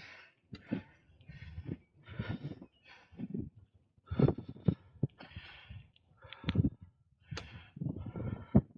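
A cyclist huffing and puffing: heavy, rapid breaths in and out, often about two a second, from hard exertion while riding.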